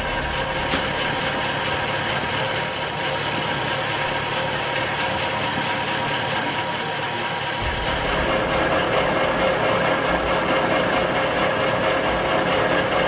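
Engine of a road-patching machine idling steadily, with a single sharp click about a second in. About eight seconds in, the running gets a little louder with more low rumble.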